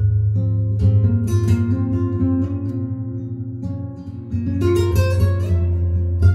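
Recorded music with a strong, steady bass playing through an Accuphase E-405 integrated amplifier and loudspeakers; it dips briefly about four seconds in.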